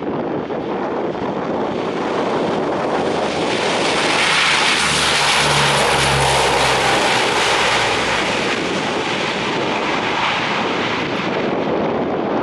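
Lockheed C-130 Hercules's four turboprop engines at takeoff power as it rolls down the runway and lifts off. The sound swells to its loudest as the aircraft passes, about five seconds in, with a low propeller drone, then eases off as it climbs away.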